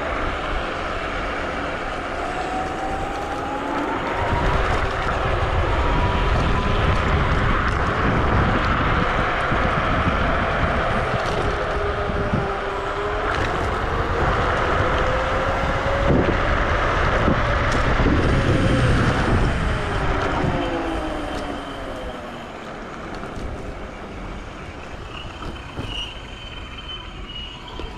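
Wolf Warrior electric scooter's dual hub motors whining under way, with a steady rush of wind and tyre noise. The whine rises in pitch as the scooter speeds up a few seconds in, then falls away as it slows about two-thirds of the way through.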